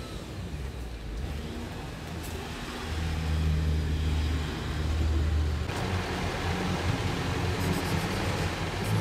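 Car engine running close by, its low hum growing louder about three seconds in, then joined by a wider rush of road noise a little past halfway.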